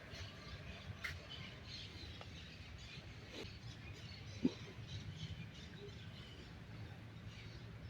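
Birds chirping and calling in short, scattered notes over a faint low rumble. A single sharp thump about halfway through is the loudest sound.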